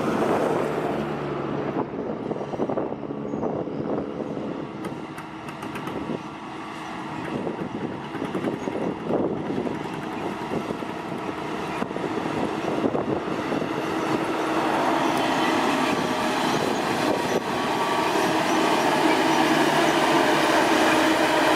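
Diesel engine of heavy road-construction machinery running steadily, getting louder in the second half as the machine draws closer, with a few sharp clanks.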